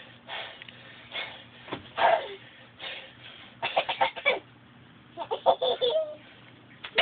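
A young child laughing and squealing in short bursts, with quick runs of giggles about halfway through and again near the end.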